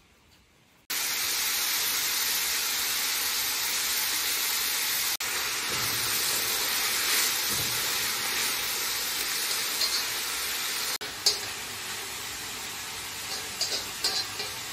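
Sliced onions sizzling in hot oil in a kazan as they are stirred. The steady sizzle starts suddenly about a second in, eases a little after about eleven seconds, and a few small clicks come through near the end.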